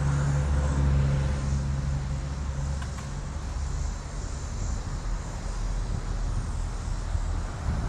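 A motor vehicle's low engine drone that fades away over the first two to three seconds, leaving steady outdoor background noise.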